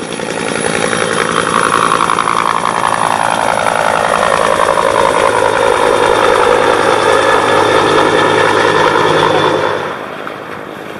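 Helicopter flying low past: turbine whine over a fast beat of rotor blades. The whine slides down in pitch over the first few seconds as it goes by, and the sound drops away near the end.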